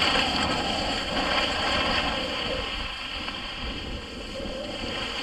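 Rushing hiss of skis sliding over packed snow, mixed with wind on the microphone as the camera skier moves downhill. It eases off a little about halfway through.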